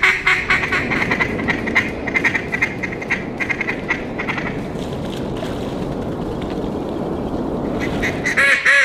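Ducks quacking: a quick run of short chattering calls for the first few seconds, then loud drawn-out quacks near the end, over a steady low rushing noise.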